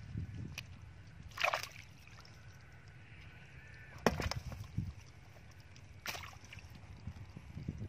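Hands groping and splashing in shallow muddy water among grass and weeds, with a few short splashy knocks; the loudest comes about four seconds in, at the plastic bucket holding the caught catfish.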